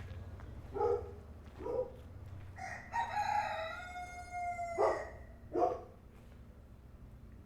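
Rooster crowing: a couple of short calls, then one long drawn-out crow that falls slightly in pitch, followed by two more short calls, over a steady low background hum.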